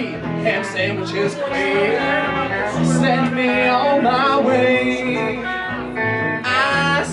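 Country band playing an instrumental break: electric guitar over upright double bass.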